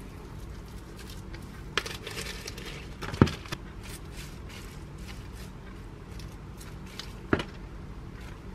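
Hands smoothing dried gim sheets and laying salad leaves on a wooden cutting board: faint crinkling and rustling, with three short sharp knocks, the loudest about three seconds in.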